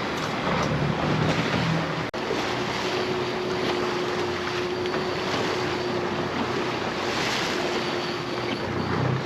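A fishing boat under way: its engine runs beneath the rush of water and wind noise on the microphone. After a brief dropout about two seconds in, a steady hum tone holds on.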